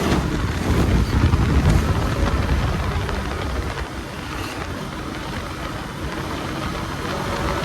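Bajaj Pulsar NS200's single-cylinder engine running under way on the road, mixed with wind noise. It swells through the first couple of seconds, then eases back.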